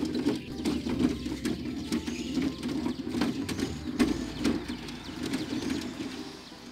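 Hand trolley pushed over rough asphalt, its wheels rumbling and its metal frame rattling with frequent small knocks. A few bird chirps sound faintly above it.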